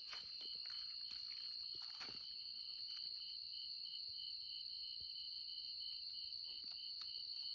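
Night insects calling: one steady high trill and a second, slightly lower one that pulses about five times a second. A few faint ticks sound over them.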